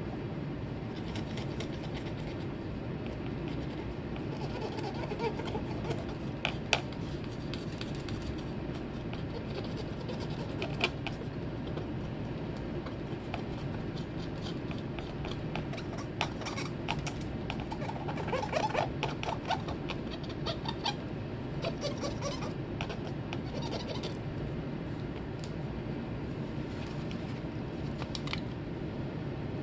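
Light scratchy rubbing and a few small sharp clicks from a cotton swab and gloved fingers working over a circuit board, heard over a steady low hum. A brief cluster of rubbing comes about two thirds of the way through.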